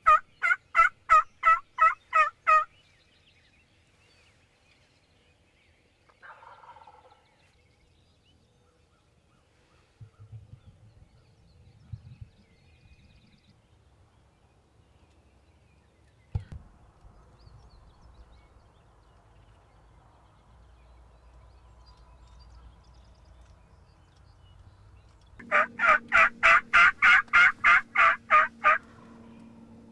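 Wild turkey calling: a run of about a dozen evenly spaced loud notes at the start, and another such run about 25 seconds in. Between them are faint scattered sounds and a single sharp knock.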